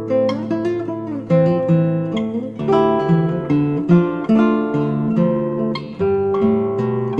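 Background music: acoustic guitar playing a melody with plucked and strummed notes.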